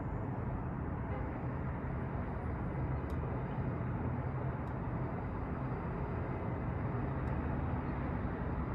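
Steady hum of city street traffic heard from high up in an apartment building, a constant low rumble with no single vehicle standing out.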